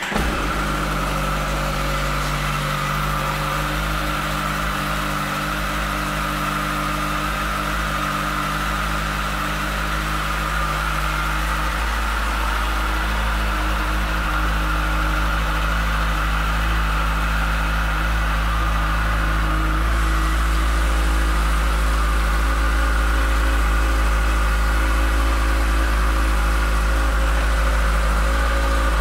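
A 2015 Kawasaki ZX-14R's 1441 cc inline-four idling steadily just after a start. It gets slightly louder about twenty seconds in.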